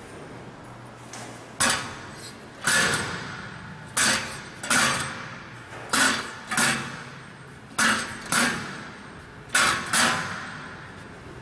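Empty steel stair-climbing hand truck with three-wheel star clusters bumping down stone steps: a loud clanking knock each time the wheel clusters drop onto the next step, coming in pairs about every two seconds, each knock with a short metallic ring from the frame.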